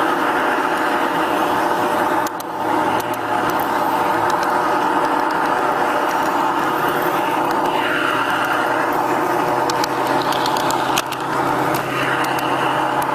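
G-scale model train running along garden railroad track: a steady mechanical running noise with a hum from its motor and wheels, broken by sharp clicks over the rails about 2 seconds in and again near the end, with a falling tone a little past halfway.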